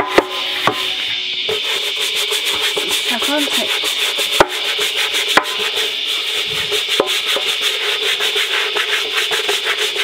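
Scrubbing the grimy bottom of a top-loading washing machine's wash tub with quick rubbing strokes. A few sharp clicks cut through the scrubbing.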